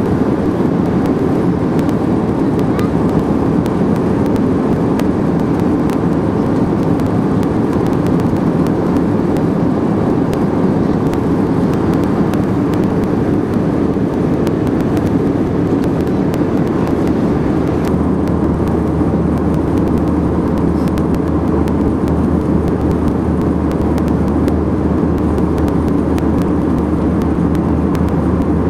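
Airliner cabin noise in cruise flight: the steady, unbroken sound of the engines and the airflow around the fuselage, heaviest in the low range.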